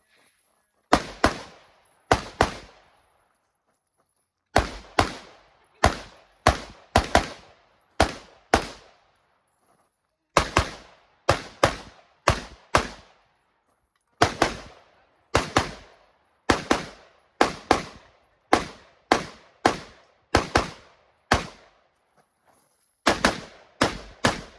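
Rifle fired in rapid strings: about three dozen sharp shots, mostly about half a second apart, in groups broken by pauses of a second or two, each shot trailing off in a short echo.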